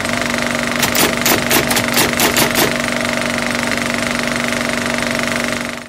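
Steady mechanical whirring with a rapid flutter, overlaid by a run of loud clicks about a second in, cutting off suddenly at the end.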